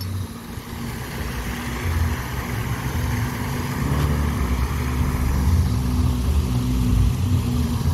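Car engine running with a steady low rumble of road noise, growing gradually louder.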